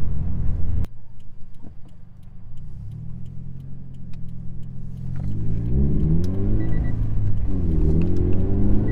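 Scion FR-S's 2.0-litre flat-four with a GReddy exhaust under acceleration in a manual car. Loud running cuts off abruptly about a second in as the driver lifts off to shift. The engine then pulls back up, rising steeply in pitch from about five seconds in, dips briefly for an upshift and climbs again near the end.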